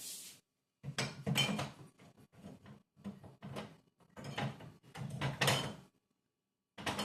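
Jars and containers being handled and set down in a fridge: a run of knocks and rattles over about five seconds, then one more knock near the end.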